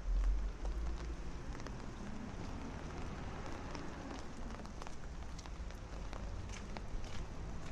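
Rain falling steadily, with many scattered drops ticking close by; a low rumble in the first second.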